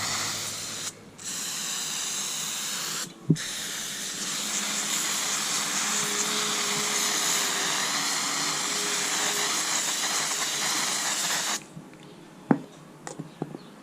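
A pressurised spray hisses steadily while the dirty, oil-caked recoil starter spring and housing are cleaned. It cuts off briefly twice in the first few seconds and stops about twelve seconds in. A few light clicks follow.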